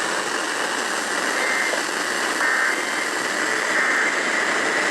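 Steady hiss of radio static from a weakly received broadcast station.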